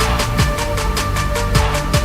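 Electronic dance music with a fast, steady beat and falling bass sweeps.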